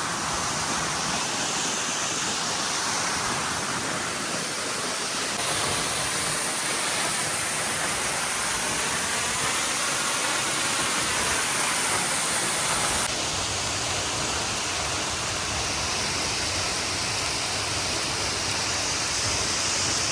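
Waterfall's falling water rushing steadily, its sound changing slightly about five seconds in and again near thirteen seconds.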